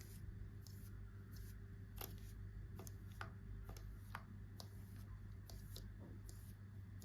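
Soft, irregular clicks and taps of small plastic toys and packaging being handled, about a dozen in the span, over a steady low hum.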